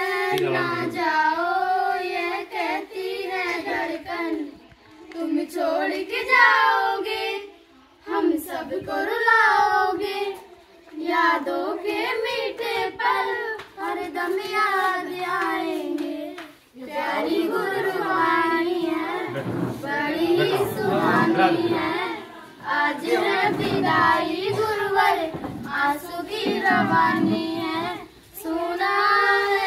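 Children singing a Hindi welcome song (swagat geet), in sung phrases broken by short pauses every few seconds.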